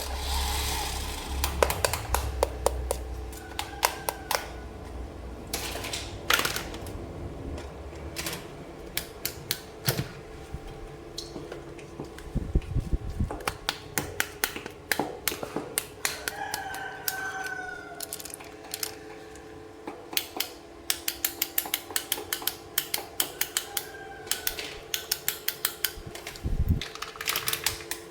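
Plastic toy pieces clicking and tapping as they are handled and unpacked, in quick runs of sharp clicks. A few brief squeaks and a faint steady hum sit underneath.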